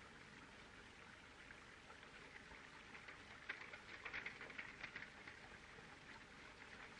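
Near silence: the faint hiss and crackle of an old film soundtrack, with the crackling growing denser about halfway through.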